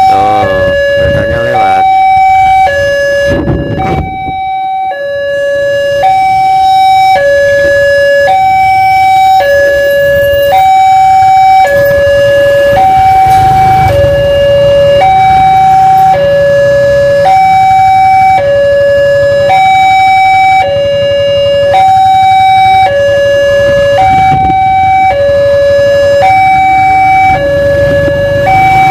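Railway level-crossing warning alarm sounding: an electronic two-note chime alternating evenly between a low and a higher note, each about a second long, signalling that a train is approaching and the crossing is closed.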